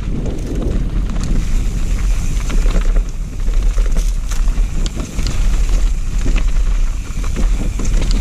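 Wind buffeting the microphone of a camera riding on a mountain bike at speed down a rocky dirt trail, a heavy low rumble. Over it, the tyres run over dirt and loose stones and the bike rattles in many short sharp clicks.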